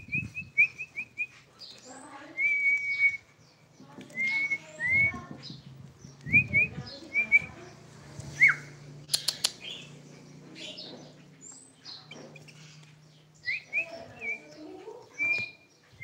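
Sooty-headed bulbul (kutilang) giving short, rising chirps and whistled notes in scattered runs, with a few sharp clicks about nine seconds in.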